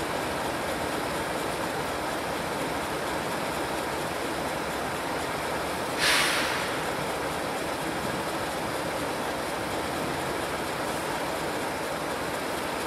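Freight train with diesel locomotives moving slowly toward the listener, a steady train noise with no horn. About six seconds in, a short sharp hiss stands out briefly and fades.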